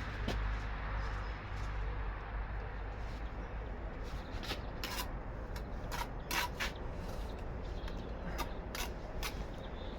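Bricklaying work with a trowel and bricks: scraping, then a run of sharp taps and clicks in the second half, as bricks are knocked and trimmed into place. A steady low rumble sits underneath.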